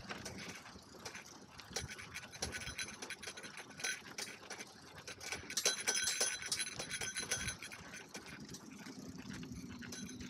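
A bicycle and its dog sidecar rolling along, with irregular rattling and clicking; a brief high ringing tone comes about halfway through.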